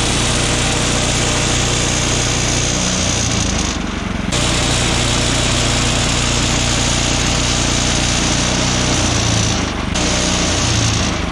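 Woodland Mills HM126 portable bandsaw mill running, its engine steady under a loud high hiss from the band blade sawing a basswood log. The hiss drops out briefly about four seconds in and again near ten seconds, while the engine note shifts.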